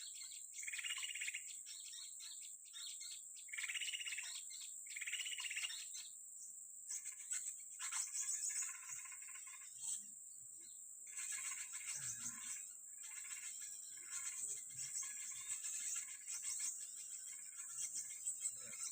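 Small birds chirping and calling over a steady high insect drone. A short call is repeated three times in the first few seconds, followed by varied chirping.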